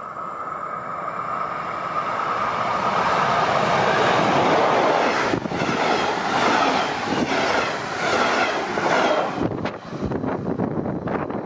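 DB Class 111 electric locomotive and its red double-deck coaches passing close by. The rumble and clatter of the wheels on the rails builds over the first few seconds, with a steady high tone as the train approaches, then falls away sharply near the end as the last car passes.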